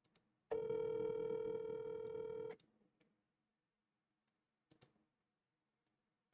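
Telephone ringback tone, the outgoing call ringing at the far end: one steady ring of about two seconds, then a pause of about four seconds before the next ring begins. A few faint clicks fall in the gaps.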